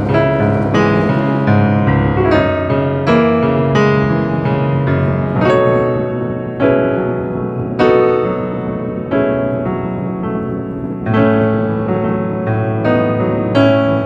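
Background piano music: slow struck notes and chords, each ringing out and fading before the next.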